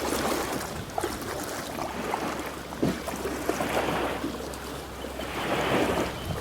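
Water washing and sloshing in swells that rise and fall every second or two, over steady wind rumble on the microphone, with a few light knocks.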